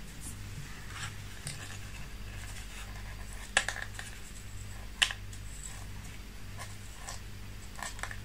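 Faint scratching and rustling of fingers handling a small tissue-covered balsa model aeroplane and its rigging thread, with two sharp ticks about three and a half and five seconds in, over a steady low hum.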